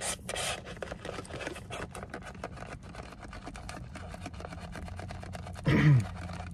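Ice rattling and clicking as a plastic straw stirs an iced drink in a lidded plastic cup, a rapid run of small sharp clicks. Near the end the straw squeaks once in the lid's hole, a short, loud sound falling in pitch.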